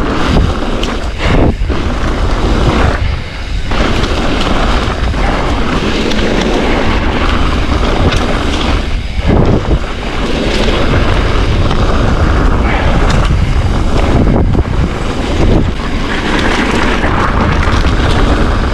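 Wind buffeting the microphone with tyre noise of a mountain bike rolling fast down a gravelled trail, a loud steady rush that briefly drops away a couple of times.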